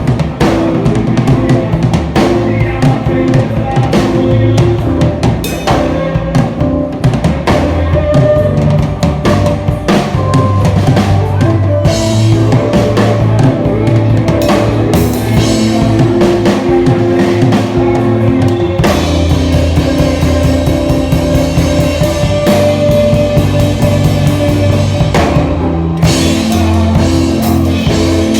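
Worship music with a drum kit playing a steady beat under the band.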